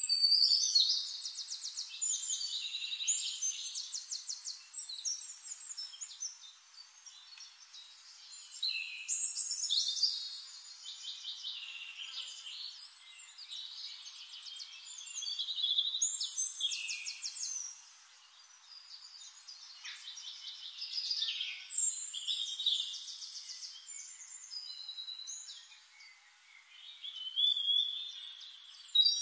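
A songbird singing rapid, high trills and chirps in phrases a few seconds long, with short pauses between them.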